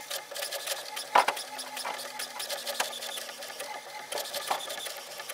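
HP OfficeJet Pro 8024 inkjet printer printing its printhead alignment page: the print carriage and paper feed whirr steadily, with many sharp clicks, a strong one about a second in.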